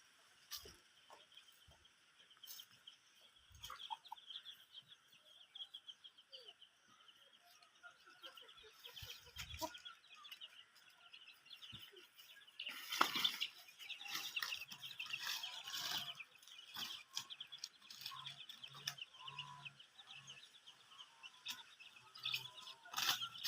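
Chickens in a coop: a steady chorus of high chirping with some clucking, and louder bursts of noise about halfway through that fit wing flapping.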